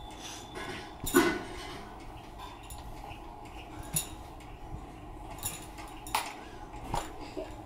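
Several light clicks and clinks of small hard objects being handled, scattered and irregular, the loudest a little over a second in.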